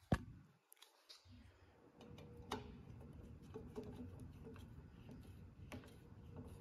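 A sharp metallic click, then a few faint ticks, as a long hex driver tightens the bolts of a steel jig onto an aluminium Holley 4150 carburettor body. A low steady rumble sits underneath from about a second in.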